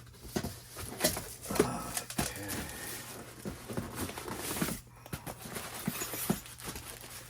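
Unpacking a boxed bench grinder: rustling packaging with irregular knocks and clicks as parts are lifted out and handled, busiest in the first half.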